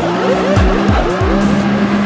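A car doing a burnout, its tires spinning and screeching on the pavement, mixed with electronic music.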